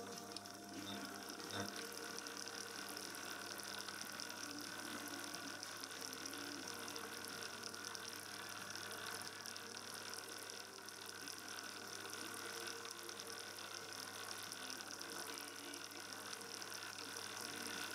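Small belt-driven bench lathe running steadily, its electric motor and round drive belts spinning a brass gear with an even whirring hum.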